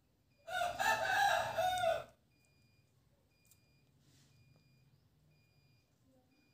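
A rooster crows once, a call about a second and a half long starting about half a second in, with a wavering pitch.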